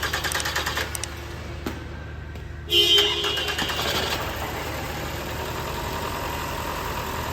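Toyota Camry 2AR 2.5 L four-cylinder engine being started: a short burst of starter cranking, then a second crank about three seconds in on which the engine catches and settles into a steady idle. The start is hesitant because fuel drained from the lines during fuel injector replacement, leaving no fuel pressure.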